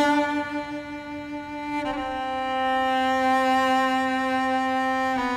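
Background music of slow bowed strings holding long notes, the notes changing about two seconds in and again near the end.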